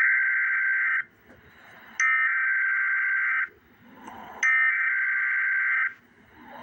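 Emergency Alert System SAME header: three bursts of buzzy digital data tones, each about a second and a half long, with a second's pause between them. This is the coded header that opens an alert and carries its event type, area and time.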